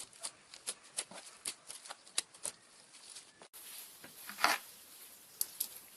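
Fluffy slime being squeezed and stretched by hand, giving a run of short, irregular sticky pops and crackles. After a cut about three and a half seconds in, one louder squelch follows about a second later.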